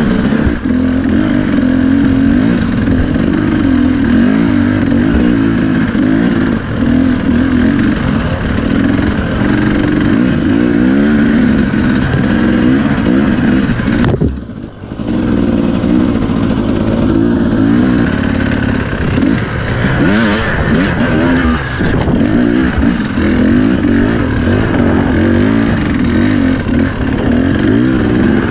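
Dirt bike engine running under constant throttle changes while riding a trail, its pitch rising and falling, with a brief drop as the throttle is shut about halfway through.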